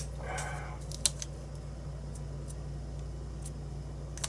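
Light clicks and small taps from the parts of a disassembled lock cylinder being handled, with a short scratchy rub near the start, over a steady low hum.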